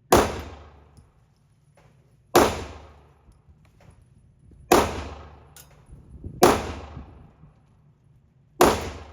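Five gunshots fired one at a time, about two seconds apart, each followed by a long echo in the enclosed shooting range.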